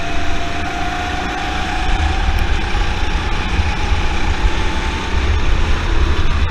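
Rental go-kart's Honda four-stroke single-cylinder engine running under throttle, its pitch rising slowly as the kart accelerates, with heavy wind rumble on the onboard microphone.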